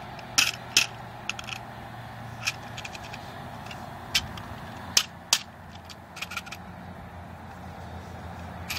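Sharp metallic clicks and rattles, irregular and about a dozen of them, from a KCI 100-round AR-15 drum magazine being worked by hand because its spring has stopped pushing the rounds up to feed.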